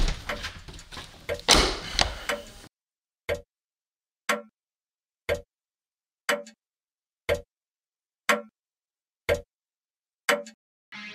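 Rustling and knocks against a wooden panelled door, then a clock ticking once a second, eight ticks in otherwise silence. Electric guitar music comes in at the very end.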